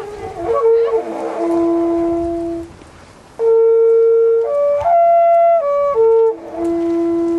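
A wooden midwinter horn blown in long held notes that step between a few fixed pitches, with a short break about three seconds in. A low note is held near the end.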